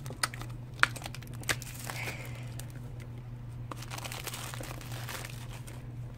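Clear plastic shrink-wrap crinkling and tearing as it is peeled off a small toy can, with a few sharp clicks in the first second and a half.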